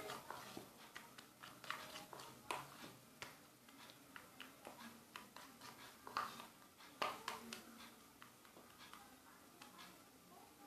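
Slime made from white PVA glue and body scrub being mixed, giving faint, irregular sticky clicks and squelches, several a second at times.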